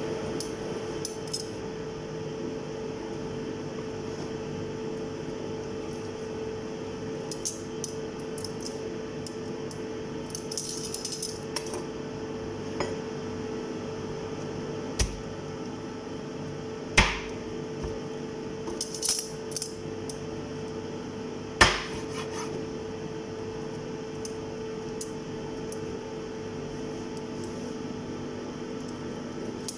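Kitchen utensils and dishes clinking and knocking now and then, with a few sharper knocks about halfway through, over a steady background hum.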